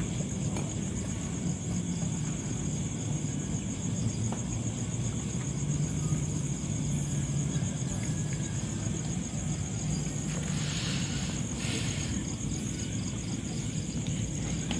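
Crickets trilling steadily in a high, pulsing chorus over a constant low rumble. About ten seconds in come two brief rustling hisses.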